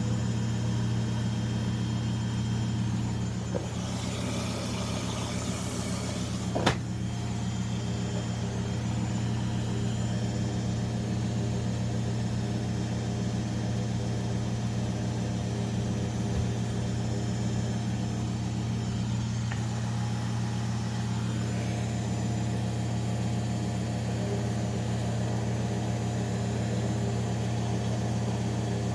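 Bauknecht WA Aquaton 1400 front-loading washing machine running at the start of a 60 °C cottons cycle: a steady low hum, with a short hiss about four seconds in and a single sharp click just before seven seconds.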